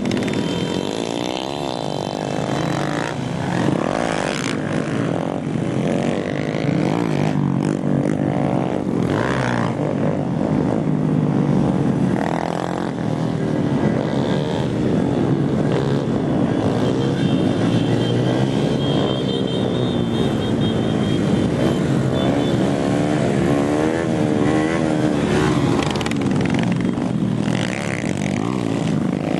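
Many small single-cylinder motorcycle engines, Honda Groms and 50cc pit bikes, running and revving together. Several engine pitches rise and fall over one another without a break.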